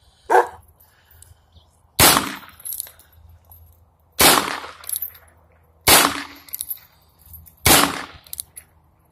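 Four shots from a Heritage .22 single-action revolver, spaced about two seconds apart. Each is a sharp crack that dies away within about half a second.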